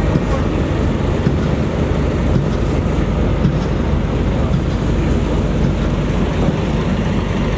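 Steady low rumble of wind buffeting the microphone, with no clear tone or rhythm.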